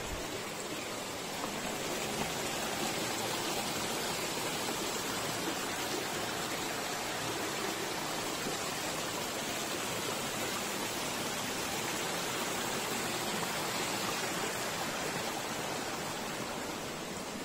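Steady rushing noise of water, a little louder after the first couple of seconds.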